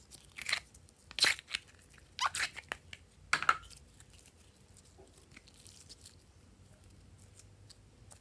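Glossy slime being peeled out of a plastic tray and squeezed by hand, giving a series of short sticky crackling pops in the first few seconds, then only faint small clicks.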